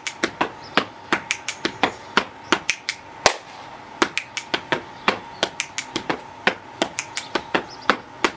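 Body percussion: a rhythmic phrase of hand claps and hand slaps on the chest and body, sharp strokes about four a second with short gaps between groups.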